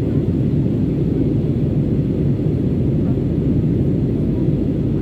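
Steady low cabin noise of an Airbus A320neo climbing after takeoff: engine and airflow noise heard from inside the cabin.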